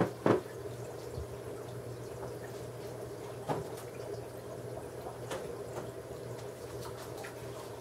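Aquarium filter running, with steady trickling and splashing water over a low hum. A sharp knock comes just after the start, and a few faint taps follow later.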